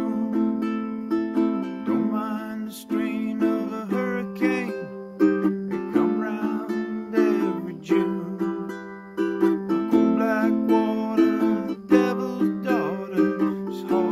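Solo ukulele playing an instrumental passage, chords strummed in a steady rhythm with no singing.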